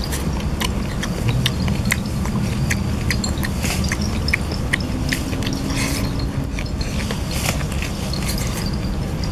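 Close-up eating sounds: a person chewing roast chicken, with many short, irregular mouth smacks and clicks over a steady low hum.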